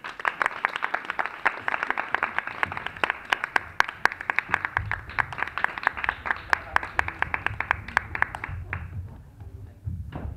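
Audience applause in a theatre: many hands clapping, starting suddenly and dying away about nine seconds in. A low rumble runs under the later part, and there is a single sharp knock near the end.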